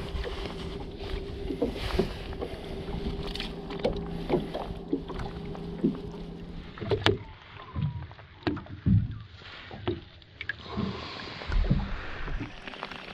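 Handling noise close to the microphone: hands, gloves and landing net knocking and rubbing while a trout is held and unhooked in the net. A steady low hum runs under the first half and stops about seven seconds in, after which a run of louder knocks and low thumps follows as the camera is moved.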